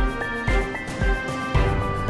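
Background music with a steady beat, added in place of the original sound.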